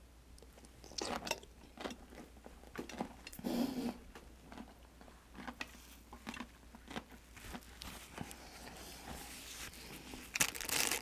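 A person eating close to the microphone: wet chewing with scattered small crunches and clicks, and a louder crunch near the end.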